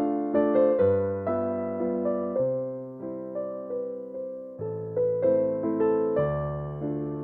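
Background music: a gentle electric piano melody, notes struck about twice a second over sustained bass notes, each fading after it is struck.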